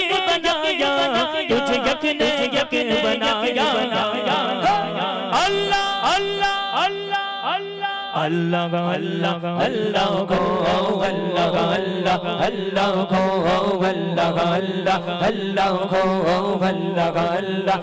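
A man singing a naat, a devotional song in praise of the Prophet, into a microphone in a chanting style, with pitch slides in the middle, over musical accompaniment with sharp beats and a steady low tone that comes in about eight seconds in.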